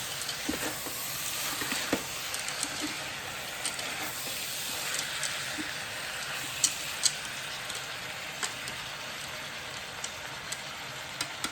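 Chopped vegetables and beans sizzling as they saute in an Instant Pot's inner pot, a steady hiss with a few sharp clicks scattered through it, the two loudest a little past the middle.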